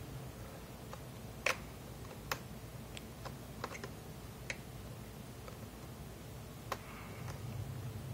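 Scattered light clicks and taps, about seven in all, from a small Phillips screwdriver and screws as the screws are taken out of a laptop's screen bezel. The loudest click comes about one and a half seconds in, over a steady low hum.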